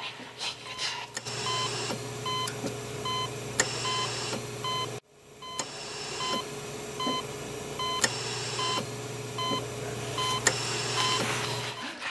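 Electronic beeping, about two short beeps a second, over a steady low hum. It cuts out suddenly about five seconds in and starts again half a second later.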